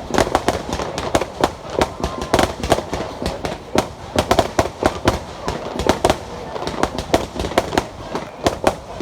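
Aerial fireworks going off in a dense barrage: a rapid, unbroken string of sharp bangs and crackles, several a second.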